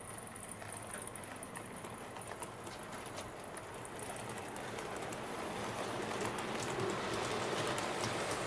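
Model train running on its track: a steady rattling rush of wheels on rail with faint ticks, growing louder over the second half as it comes closer.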